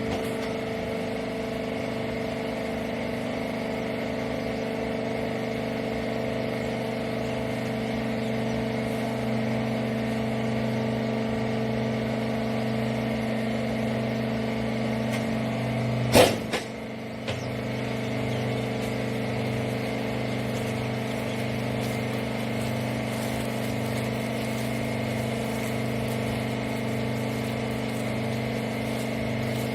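Hydraulic wiper rag baler's power unit, an electric motor and pump, running with a steady hum. About halfway through there is one sharp bang, after which the hum briefly drops and then picks up again.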